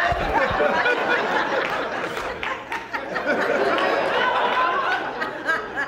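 Audience laughing: a dense crowd of many voices laughing together, easing off near the end.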